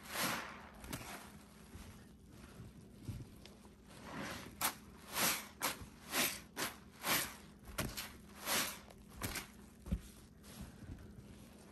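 Smiley-face scrub sponges full of pine-paste suds being squeezed, giving wet squelching squishes. There is one squeeze at the start, then a quieter stretch, then a run of squelches about once a second from around four seconds in.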